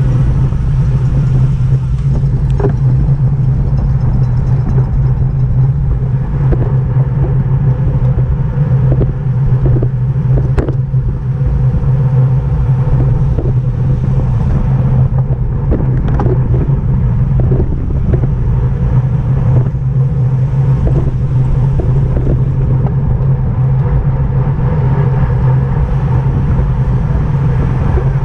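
Steady, loud wind rumble buffeting the microphone during a bicycle race at speed, with a few sharp clicks scattered through it.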